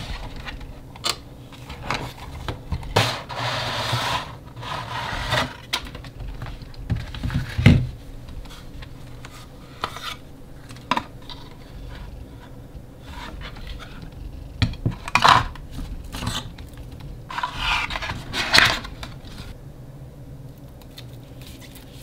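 Cardboard packaging and a hard plastic lightstick being handled: scraping and rubbing as the lightstick is slid out of its box tray and its plastic stand pulled free, with scattered clicks and knocks in irregular bursts.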